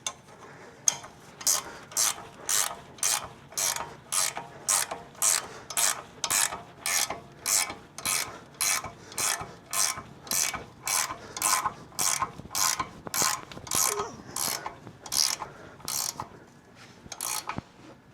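Hand ratchet wrench clicking through repeated strokes, about two a second, as a nut is run down, most likely the upper ball joint nut on the truck's steering knuckle. The strokes stop shortly before the end.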